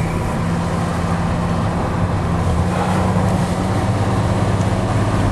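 Jeep YJ engine running steadily as the Jeep drives off slowly, heard from inside the cab as a constant low drone.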